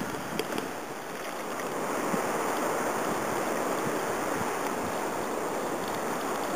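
Steady rush of sea water and wind, growing slightly louder about two seconds in.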